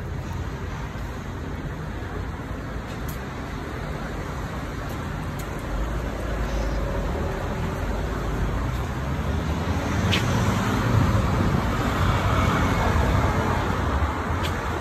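Road traffic passing on a city street: a steady wash of engine and tyre noise that grows louder about six seconds in and again around ten seconds.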